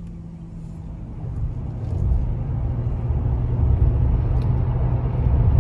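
Car engine and road noise heard from inside the cabin: a low rumble that grows louder over the first two seconds as the car speeds up, then holds steady.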